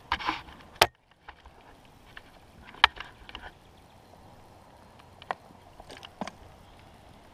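A few separate sharp knocks and clunks with quiet stretches between, the loudest about a second in and near three seconds, after a brief scraping rustle at the very start.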